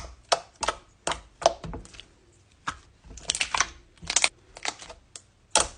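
Homemade glue slime (white school glue, baking soda and contact lens solution) being kneaded by hand: about a dozen short, irregular sticky squelches and pops.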